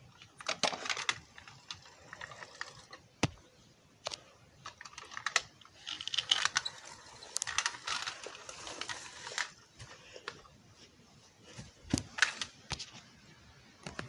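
Small plastic toy mail truck being handled and pushed across carpet by hand: irregular clicks and rattles, with busier clattering runs about a second in, from about six to nine seconds, and again near twelve seconds.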